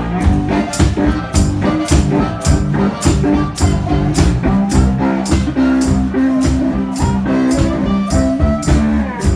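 Live blues-rock band playing a song with a steady beat, percussion hits about twice a second over sustained instrument notes.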